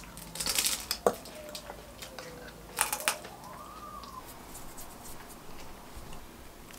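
Soft clicks, scrapes and rustles of eating and handling food and utensils at a table, with a spoon scraping a jar. A faint tone slowly dips and rises in the middle.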